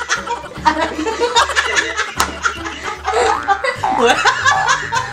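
A man and a woman laughing together, with background music underneath.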